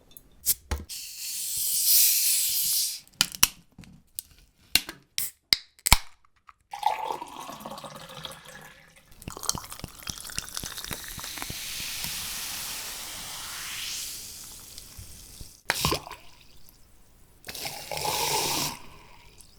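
A sequence of bar sounds: a brief hiss, a quick run of glass clinks, then liquid pouring into a glass for several seconds, its pitch rising as the glass fills, and a couple of short knocks near the end.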